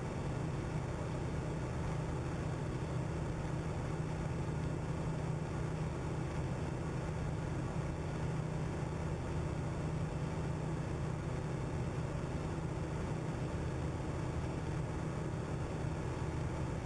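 Steady low engine drone with an even rushing hiss over it, unchanging in pitch and level.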